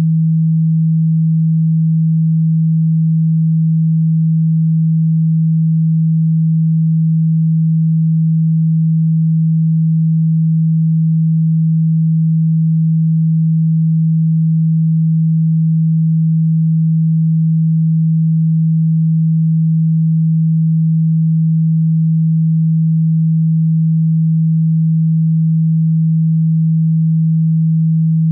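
A low, steady electronic sine tone held at one unchanging pitch, with no overtones.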